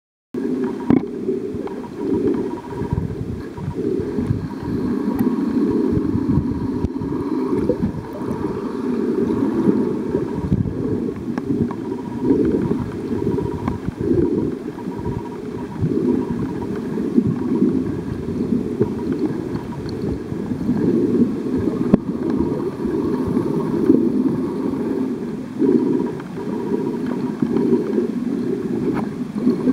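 Muffled underwater noise heard through a camera's underwater housing: an uneven, low rushing and gurgling of water moving past the camera.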